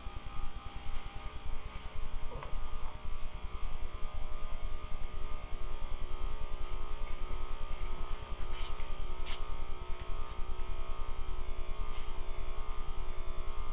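Steady machine hum with a strong low rumble and several steady tones, pulsing quickly in loudness; two sharp clicks about two-thirds of the way through.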